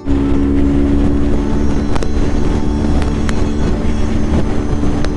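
Adventure motorcycle's engine droning steadily at highway cruising speed, with low wind rumble and a few faint ticks.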